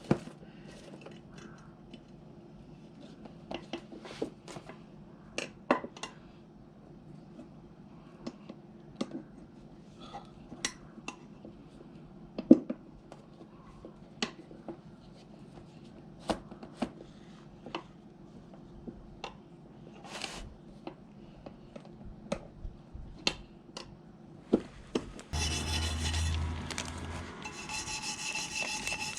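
Scattered clicks and knocks of hand tools and metal parts being handled during work on a small scooter wheel. About 25 seconds in, a power tool starts: a steady whirring with a rubbing, rasping noise.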